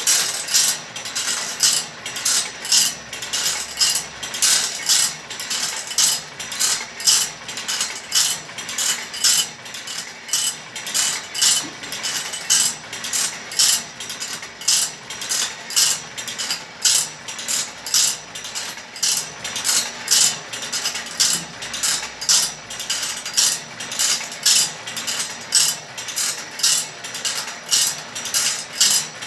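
Automatic band saw blade sharpening machine at work: its grinding wheel rasps against the steel teeth in a steady rhythm of about two strokes a second as the feed mechanism steps the blade along tooth by tooth.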